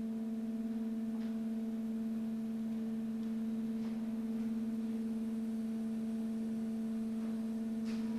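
A steady electronic synthesizer drone held on one low note with fainter overtones, unchanging throughout.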